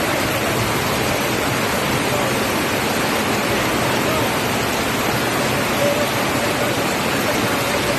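Swollen floodwater rushing steadily, a dense unbroken wash of water noise, with faint voices underneath.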